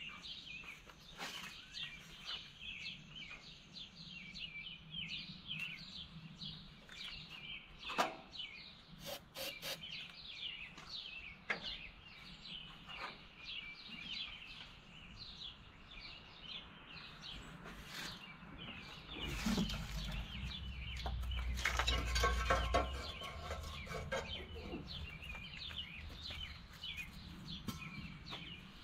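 Birds chirping steadily in quick, high, short calls, with scattered clicks and knocks. About two-thirds of the way through, a low rumble rises for several seconds and then fades.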